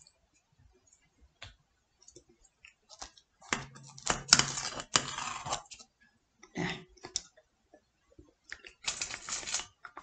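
Scissors snipping through a baked pizza and its crust: scattered light clicks of the blades, then several short crunchy cutting strokes, the longest about four to five seconds in.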